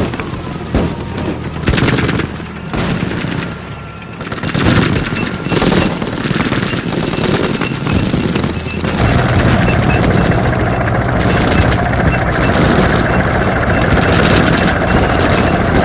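Battle-exercise gunfire: machine-gun bursts and single shots crackling irregularly. About nine seconds in, a steady low rumble sets in and grows louder under continuing rapid fire.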